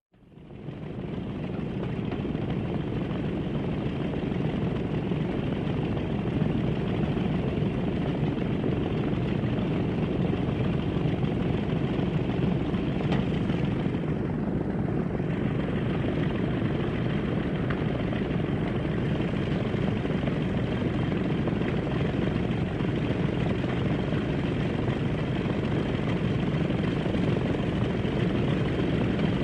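Airplane in flight: a steady, even engine drone that fades in over the first couple of seconds and then holds level.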